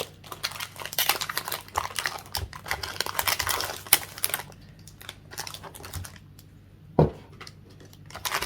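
Packaging and a boxed candle being handled: a run of quick clicks and rustles for the first four seconds or so, then quieter handling with a single knock about seven seconds in.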